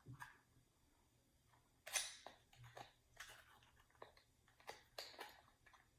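Faint crackling and clicking of toy packaging being handled and opened by hand, in short scattered bursts, the loudest about two seconds in.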